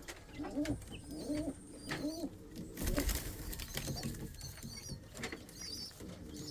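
Domestic pigeons cooing in a loft, a quick run of low repeated coos in the first half. About three seconds in comes a brief loud rustle, and faint high chirps follow.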